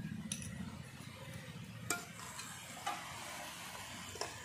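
Spinach and vegetables sizzling quietly in a metal kadai, with about four sharp clicks of a metal spatula against the pan as they are stirred.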